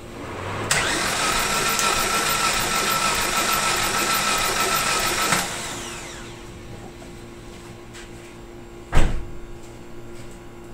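Chevrolet Aveo's four-cylinder engine turned over by its starter for about five seconds with the spark plugs out, not starting, stopping abruptly and winding down; cylinder 1 builds no compression, which the mechanic puts down to bad piston rings. A single sharp thump about nine seconds in.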